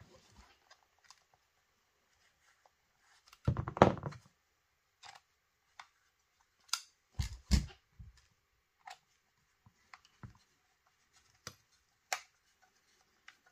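Scattered small clicks and knocks of a paintball marker's parts, muzzle comp and body screw being handled and fitted, with the loudest cluster of clunks about four seconds in and two more knocks a few seconds later.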